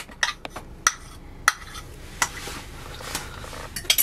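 Spoon stirring buttercream frosting (butter beaten into icing sugar) in a bowl, with scattered clinks against the bowl and a softer stretch of scraping about halfway through, then a quick run of clinks near the end.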